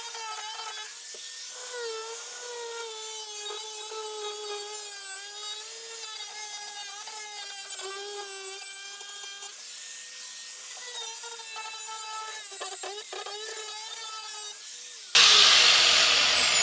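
Power-tool wire wheel stripping primer off sheet steel around a weld zone, its motor whining with a pitch that wavers up and down as the wheel is pressed against the metal. About 15 s in, a sudden much louder, harsher noise takes over.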